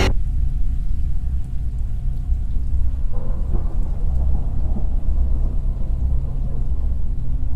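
Deep, continuous rumble like rolling thunder, with a faint steady drone above it; a rougher, brighter layer swells about three seconds in, then fades.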